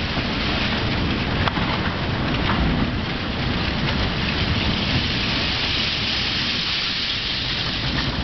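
Orange-peel grab of a SERAM S150 balanced crane digging into a heap of shredded scrap metal and lifting a load: a dense, steady rustling clatter of small metal pieces, with a few sharp clicks.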